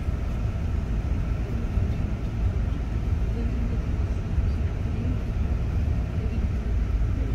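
Airport apron bus driving, heard from inside the passenger cabin: a steady low engine and road rumble.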